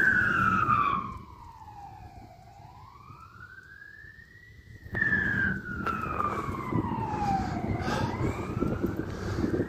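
Fire truck siren in a slow wail, its pitch sliding down and back up about every five seconds. It turns fainter about a second in and comes back loud about five seconds in.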